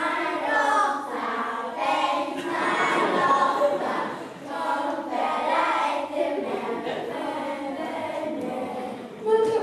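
A group of children singing a song together as a choir.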